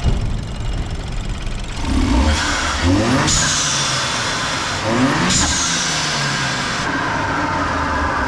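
BMW N20 turbocharged 2.0-litre four-cylinder blipped twice, about two and about five seconds in. Each rev is followed by a loud high hiss that fades, the aftermarket CTS blow-off valve venting when the throttle closes.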